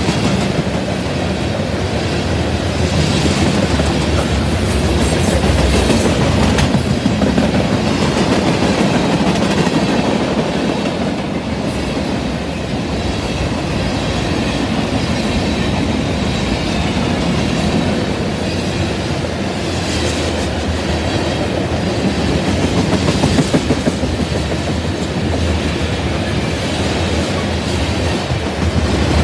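Freight cars of a mixed freight train (covered hoppers, boxcars and tank cars) rolling steadily past close by: steel wheels running on the rails in a continuous rumble, with scattered clicks over the rail joints.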